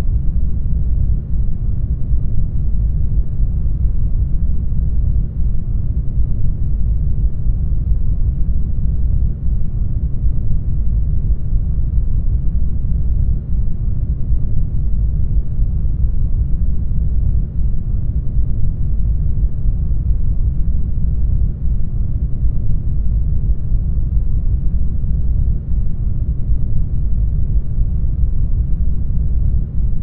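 Isolation-tank ambience: a steady, deep, muffled rumble with nothing in the high range, unchanging throughout.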